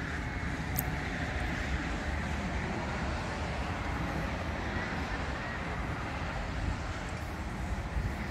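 Steady rumble of road traffic, with one light click about a second in.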